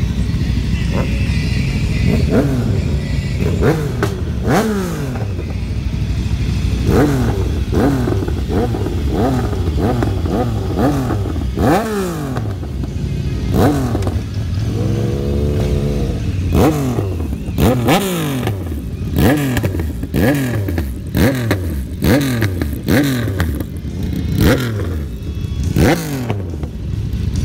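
Several motorcycle engines running as riders pull away, with repeated sharp throttle blips that rise and fall, about one a second. Around the middle one engine holds a steadier, higher rev for a second or two.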